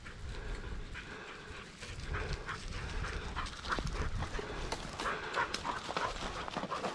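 Footsteps crunching through dry grass and brush, with a hunting dog's panting close by.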